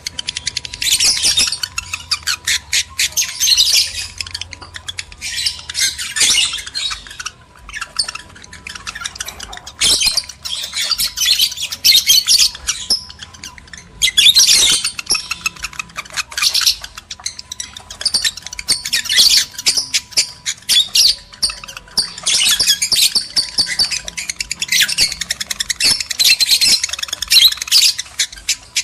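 Lovebirds chattering and squawking in fast, shrill bouts with short pauses: excited breeding-condition calls of the kind used to stir other lovebirds to mate.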